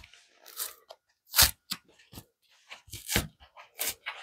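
Cardboard book mailer being torn open by hand at its corner: an irregular string of crackles and crunches, with a few sharper, louder ones as the board rips.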